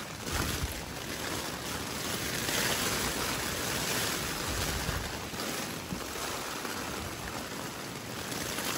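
Steady rain falling on a tent, with wind.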